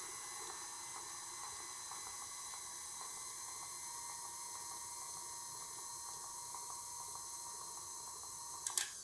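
KitchenAid Artisan stand mixer running at medium speed, its motor giving a steady whine as the flat beater mixes streusel in a glass bowl. Near the end there is a click and the motor begins to wind down.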